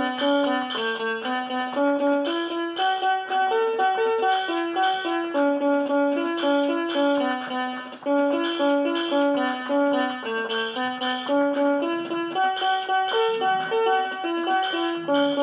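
Portable electronic keyboard playing a quick melody one note at a time, short notes stepping up and down, with a brief break about eight seconds in.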